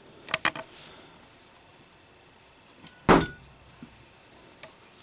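A few small clicks of a Zippo lighter being handled, then about three seconds in a single loud metallic clank as the brushed-chrome Zippo lighter is dropped and hits a hard surface, with a brief ring.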